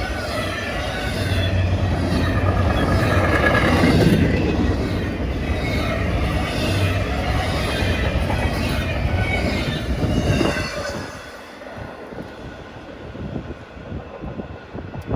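Freight train cars rolling past at speed: loud steady wheel-on-rail noise with a light rhythmic clatter and some wheel squeal. The noise drops away suddenly about ten seconds in as the end of the train goes by.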